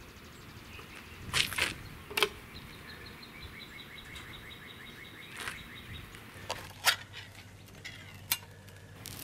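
A few sharp clicks and knocks from handling the solar oven's glass lid and a metal soup can, with a rapid run of evenly spaced chirps in the background from about two and a half to six seconds in.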